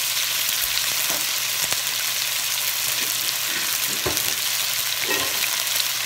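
Strips of raw chicken with slivers of ginger sizzling steadily in hot oil in a nonstick wok, just after going into the pan, with a few light ticks.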